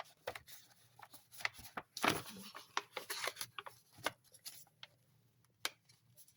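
Paper rustling and crinkling as the pages and paper inserts of a handmade junk journal are handled, with small taps and a louder rustle about two seconds in.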